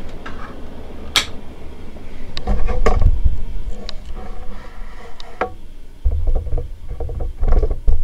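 Sharp clicks from a D.E.M.C. five-speed rotary ceiling-fan control being turned, the loudest about a second in. Patches of low rumbling air from the Commander Angel ceiling fan's turning blades buffet the microphone.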